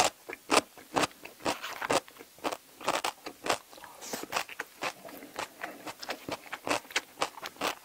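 Close-miked crunchy chewing of kkakdugi, cubed radish kimchi: irregular crisp crunches, several a second.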